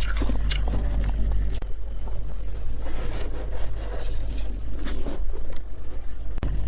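Spoon scraping and crunching through chunks of humidifier frost: a run of irregular sharp crunches and scrapes over a steady low hum.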